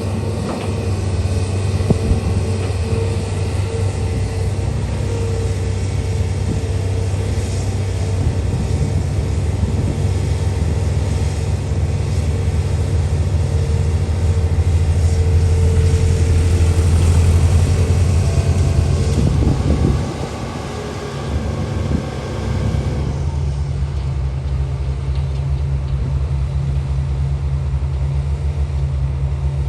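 Heavy diesel engine of a big truck or excavator running: a steady low drone with a held tone above it. It grows louder past the middle, dips briefly about two-thirds through, then settles to a steadier, lower running.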